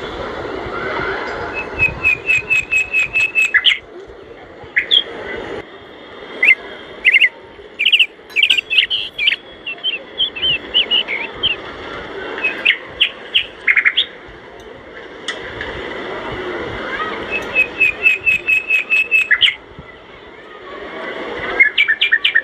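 Birds chirping in quick runs of short, high, repeated notes, each run a second or two long, over a steady rushing hiss.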